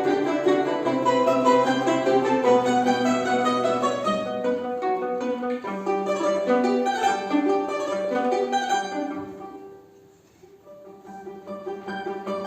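Instrumental music of quick plucked-string notes, mandolin-like in sound. About ten seconds in it dies away almost to silence, then the music picks up again.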